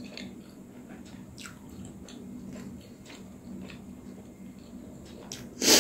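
Close-up chewing of steamed momo dumplings, with faint wet mouth clicks, then a short, loud, wet bite into a juicy momo near the end.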